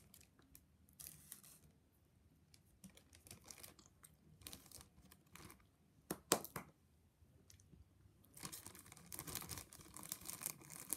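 Clear plastic bag crinkling and rustling as it is handled, in faint scattered clicks and rustles with one sharper click a little past the middle, turning to denser rustling near the end.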